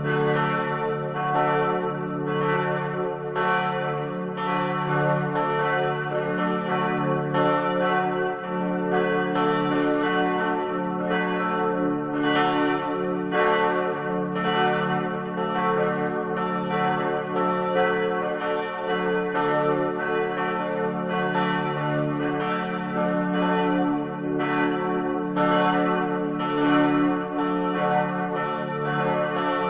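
Church bells ringing: a strike about once a second, each ringing on and overlapping the next.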